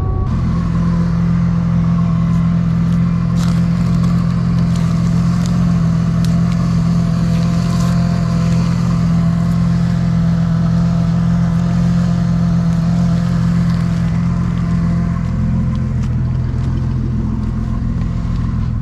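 Supercharged Jeep Grand Cherokee's 4.0 L straight-six running steadily at low revs, with a few light clicks and rustles over it.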